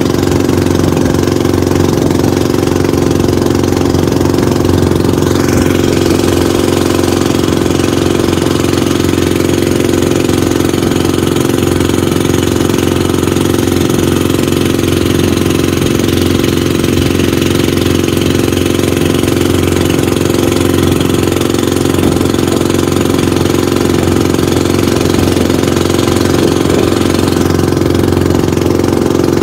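Outrigger boat's engine running steadily under way, an even, unchanging engine note, with water and wind hiss over it.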